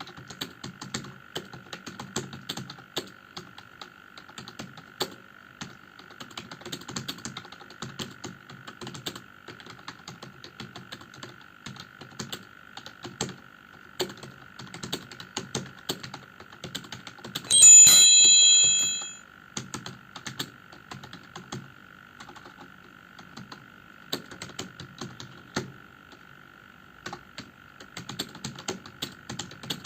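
Computer keyboard typed on in quick, irregular key clicks, with a faint steady high whine underneath. Just past the middle, a loud ringing tone of several pitches sounds for about a second and a half.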